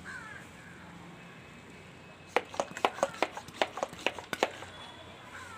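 A quick run of about a dozen sharp clicks or taps over roughly two seconds, with a few faint short falling chirps before and after.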